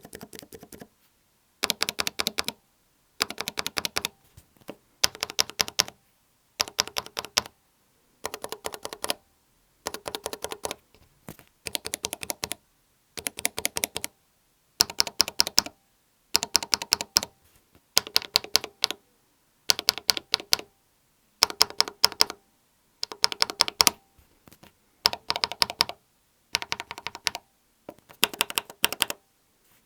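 Akko mechanical keyboard switches with keycaps fitted, in a switch tester, pressed in quick runs of clacks. Each run lasts under a second, and a new run starts about every second and a half.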